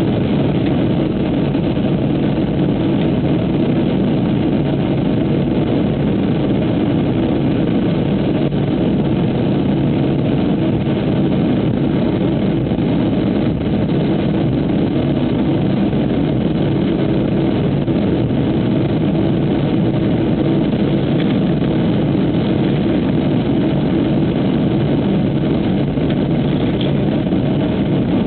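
Cabin noise inside a Boeing 737-600/700 airliner on the ground: a steady, loud drone of the jet engines and the rumble of the plane rolling on the runway, holding level with no spool-up.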